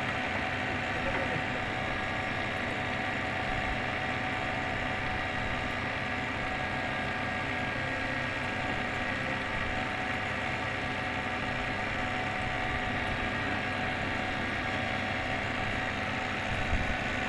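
Boat engine running steadily: a constant, unchanging hum with several steady tones.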